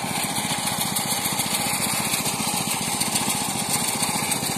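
Small engine of a motorized rice thresher running steadily, with a rapid, even chugging.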